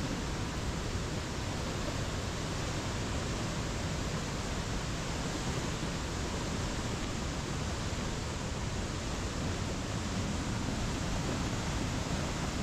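Steady rush of a flooded mountain river pouring over boulders in muddy white-water rapids, the river swollen by monsoon flood.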